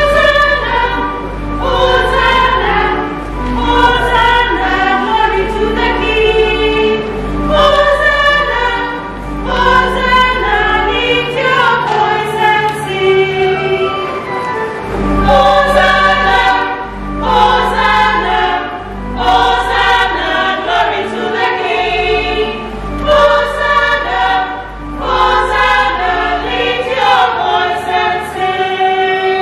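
Mixed church choir singing a hymn, over low held bass notes that change every few seconds.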